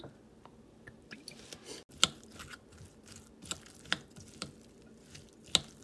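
Wooden spoon mixing wet, julienned zucchini dumpling filling in a glass bowl: soft wet squishing with sharp clicks of the spoon against the glass, starting about two seconds in.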